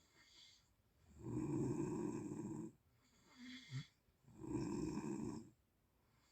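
A sleeping person snoring: two loud snores, each over a second long, about three seconds apart, with a softer breath out between them.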